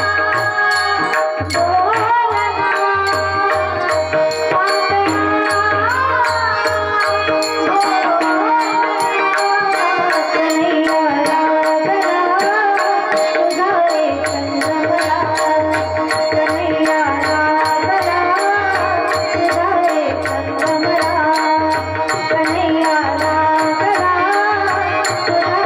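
Marathi devotional kirtan singing by a woman over a steady drone, with the steady clink of small hand cymbals (taal) and mridang drum beats. The drum drops out for several seconds in the middle and then comes back.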